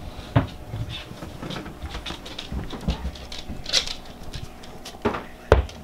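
Irregular light taps and clicks on hard surfaces, with a couple of louder knocks near the end.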